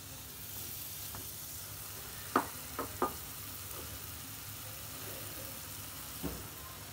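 Masala gravy sizzling steadily in a nonstick kadai, with a few short light clicks about two to three seconds in.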